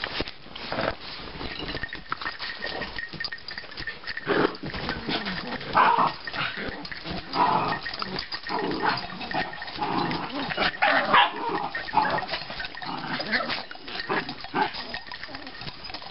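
Several small dogs, Chihuahuas among them, play-growling as they wrestle, in irregular bursts that come and go, over scuffling on the cushions.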